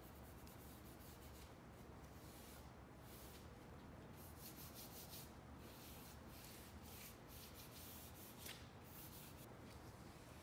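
Faint, irregular swishes of a brush spreading oil finish over black walnut boards.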